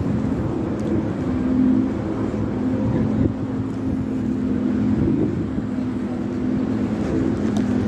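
A steady engine drone: a low, even hum that holds the same pitch throughout.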